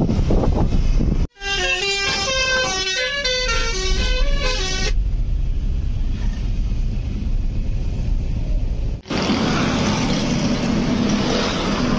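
Steady road and rain noise of a car driving through drizzle on a wet road. A little over a second in, a vehicle horn plays a quick tune of stepped notes for about three and a half seconds. Near the end the noise becomes louder and hissier.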